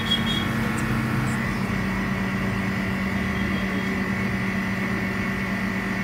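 Refrigeration unit of a −180 °C screen-separating freezer running: a steady hum with a constant thin high whine.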